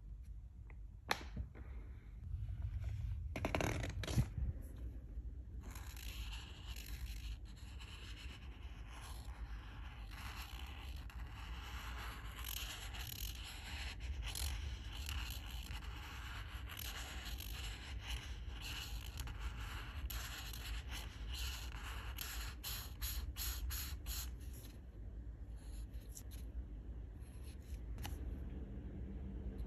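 Alcohol marker nib scraping across paper while colouring in, a continuous scratchy sound made of many short strokes, with quicker strokes near the end. A sharp click comes about a second in.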